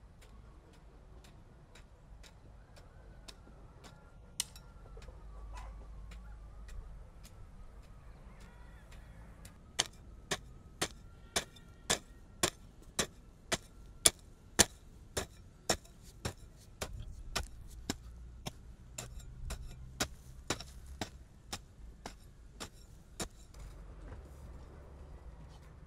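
A steady series of sharp clicks or knocks, about two a second, faint at first, much louder from about ten seconds in, then fading again near the end.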